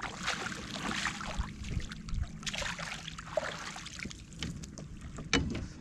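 Water trickling and splashing against a kayak while a landing net is handled, with small clicks and knocks of fishing gear on the hull and a sharper knock near the end.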